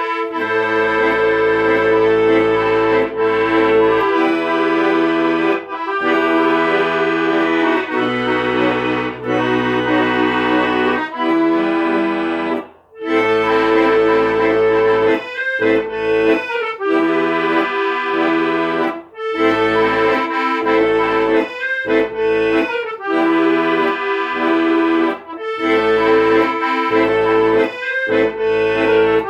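Accordion playing a slow instrumental tune in held chords over changing bass notes, with brief breaks between phrases.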